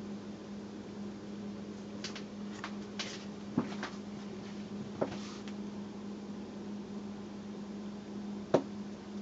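Faint, scattered crackling of vinegar fizzing on a lump of lime mortar, the acid reacting with the lime, with three sharper clicks, the loudest near the end. A steady low hum runs underneath.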